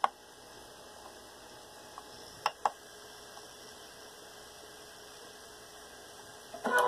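A steady low electrical hum with a couple of sharp clicks around the middle. Near the end, the 3D printer's Z-axis stepper motors start moving with a loud steady whine of several pitches.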